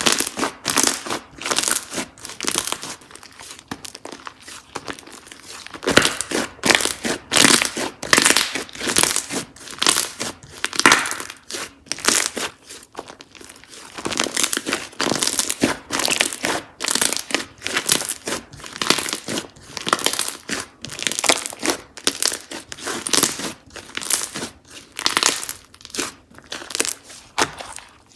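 Slime being squeezed, stretched and pressed by hand, with a dense, irregular run of crackling and popping clicks.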